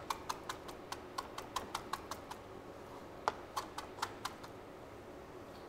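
Knife chopping fresh cilantro on a cutting board: quick, light taps at about four or five a second, pausing about two seconds in and starting again briefly a little after three seconds.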